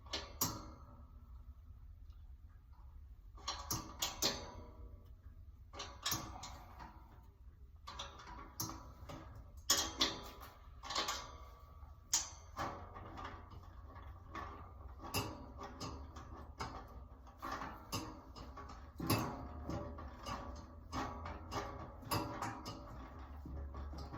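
Irregular clattering, clicking and knocking as snack display rack parts are handled and fitted together, over a low steady hum.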